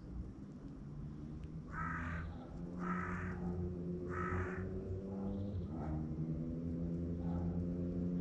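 Carrion crow cawing three times, about a second apart, over a steady low hum.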